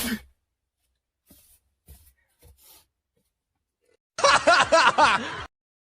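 Laughter: a quick run of about five laughs, just over a second long, beginning about four seconds in. A short loud vocal sound ends right at the start, and a few faint clicks fall between the two.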